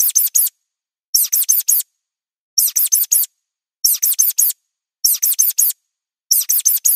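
Looped mouse squeak sound effect: quick bursts of four high-pitched squeaks, each dropping in pitch, repeating about every 1.3 seconds, six bursts in all.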